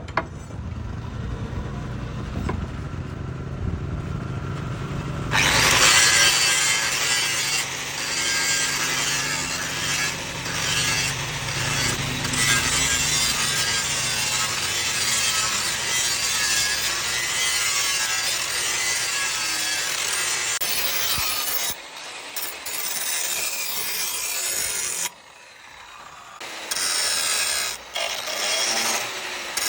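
A tool rasping against material in a long continuous run. It starts about five seconds in after a lower rumbling stretch, breaks off at about 25 seconds, and returns in short bursts near the end.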